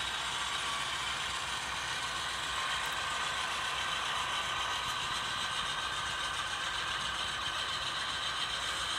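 Steady rolling clatter of a long string of HO scale model freight cars running slowly on model track.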